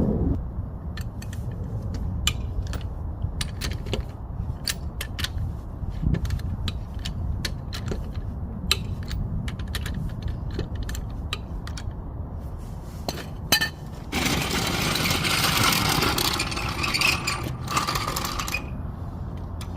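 Hand tools at work on a car's front wheel lug nuts: scattered sharp metallic clicks and clinks, then a louder harsh rasping burst lasting about four seconds near the end.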